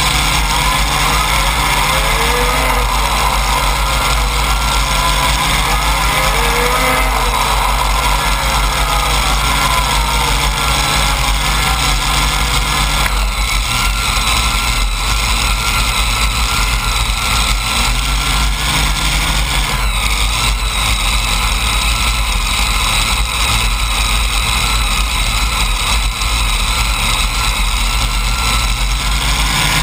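Multiple supercharged Hemi V8 engines of a pulling tractor idling, a steady loud sound that shifts slightly in pitch about 13 and 20 seconds in.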